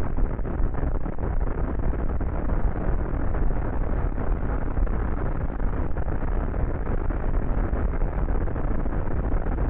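SpaceX Starship Super Heavy's Raptor rocket engines firing during liftoff and ascent: a steady, heavy low rumble with a crackle through it.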